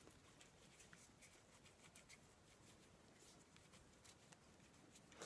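Near silence, with faint scattered ticks from a lump of soft clay being rolled into a ball between the palms.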